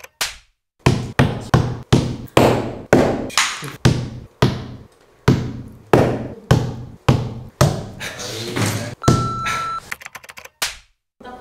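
Darts striking eyeshadow pans fixed to a paper target on a wall: a quick run of sharp thunks, about two to three a second, each fading away briefly. A short steady beep comes near the end.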